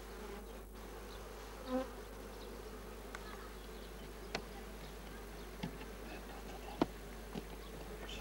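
Honeybee colony humming steadily in an opened wooden hive, with a few short sharp clicks as the wooden frames are handled. A single bee buzzes close by for a moment, about two seconds in.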